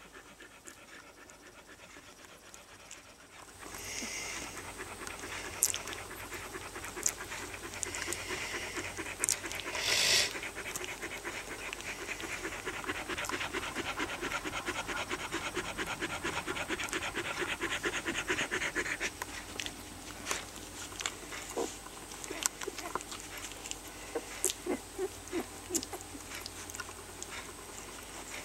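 Rough collie dog panting rhythmically while her one-week-old puppies nurse, starting a few seconds in and steadiest through the middle. Short sharp clicks from the suckling puppies come through the second half, with a brief louder rustle about ten seconds in.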